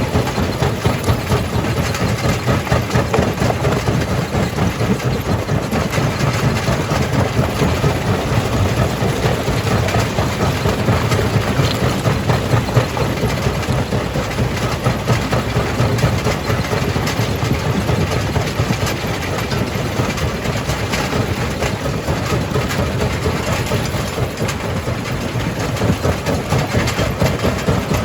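Rock-crushing plant with a jaw crusher running: a steady, loud, heavy mechanical din.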